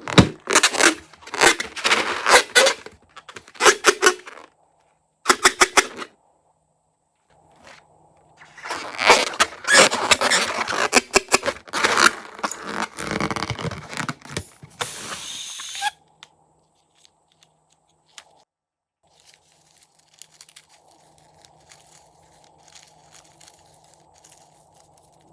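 Crunchy slime being squeezed and worked, giving trains of sharp crackling pops. The pops come in bursts over the first four seconds and again, dense, from about eight to sixteen seconds, then fade to faint, sparse crackles.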